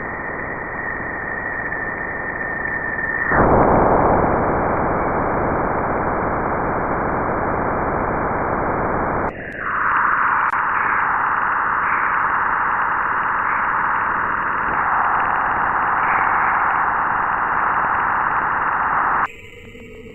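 Spacecraft radio and plasma-wave recording converted to audio, heard as static-like hiss. A steady high tone runs over the hiss until about three seconds in, when the hiss jumps louder. About nine seconds in it changes to a narrower rushing hiss with faint wavering, which cuts off abruptly near the end.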